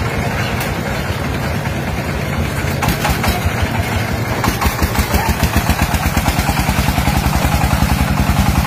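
Single-cylinder 'dompeng' diesel engine running with a rapid, even thudding beat that gets louder over the second half.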